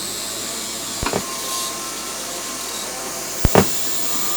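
Budda Box circuit-bent noise box putting out a steady harsh hiss with faint thin whistling tones. Sharp clicks come about a second in and twice around three and a half seconds in.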